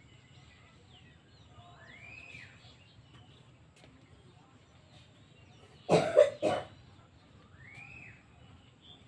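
A cough in three quick bursts about six seconds in, loud against the quiet yard. Faint bird calls sound twice, each a rising-then-falling whistle.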